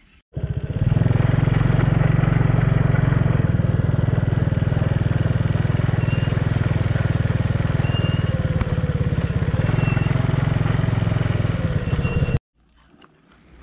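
Small motorcycle's engine running steadily under way, with wind on the microphone. It cuts in about half a second in and cuts off suddenly near the end.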